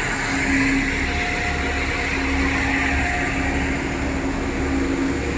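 Street-sweeper truck running, its engine and vacuum blower giving a steady hum over a low rumble and a constant hiss.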